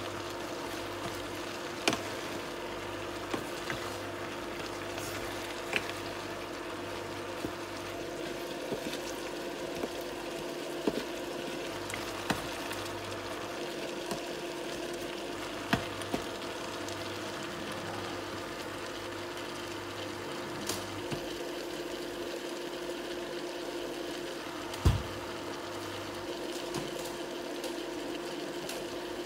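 Beef and vegetables sizzling softly in a frying pan, over the steady hum of a portable electric cooktop whose low drone cuts in and out. A wooden spatula clicks against the pan now and then, with one louder knock near the end.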